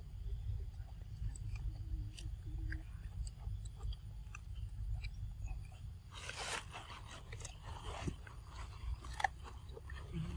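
Macaques chewing and biting into corn on the cob, small crunching clicks scattered through, over a steady low rumble. About six seconds in, a denser, louder spell of crunching and rustling.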